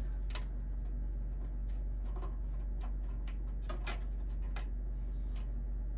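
Thumbscrews being turned by hand into a computer case's expansion-slot bracket to lock down a graphics card: a scatter of faint, irregular ticks and scrapes over a steady low hum.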